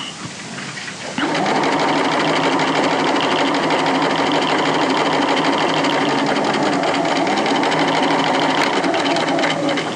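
Electric domestic sewing machine stitching a side seam through cotton fabric: it starts about a second in, runs steadily, and stops just before the end.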